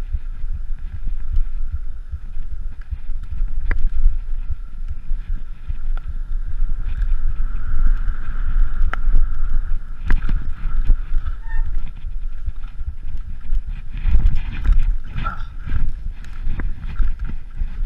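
Mountain bike riding over slickrock, heard through an action camera: wind buffeting the microphone as a steady low rumble, with scattered clicks and knocks from the tyres and bike over the rock.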